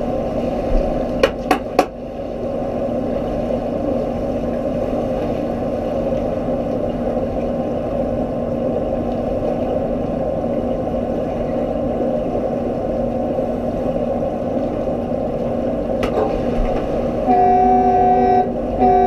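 Steady underwater rumble of a pool during an underwater rugby game, heard through the submerged camera, with three sharp clicks about a second and a half in. Near the end the underwater signal horn sounds twice, a long blast and then a short one, the signal that stops play.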